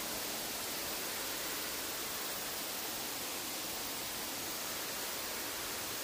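Steady rush of a waterfall's falling water, an even hiss with no breaks.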